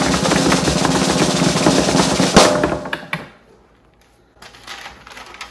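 Snare drum roll for suspense before a winner is announced, ending in a sharp final hit about two and a half seconds in that dies away within a second.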